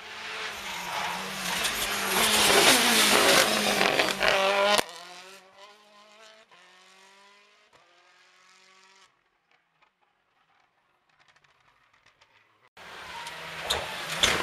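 Rally cars at full throttle on a tarmac stage. One car's engine builds to a loud pass and cuts off sharply about five seconds in. A fainter engine then climbs in pitch through its gears and fades out, leaving a few seconds of near silence. Near the end a white Ford Focus WRC comes in loud as it approaches.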